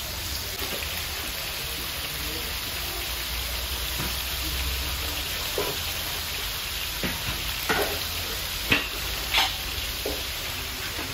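Meat tagines cooking over charcoal braziers, giving a steady sizzling hiss. A few sharp clinks and knocks from dishes being handled come in the second half.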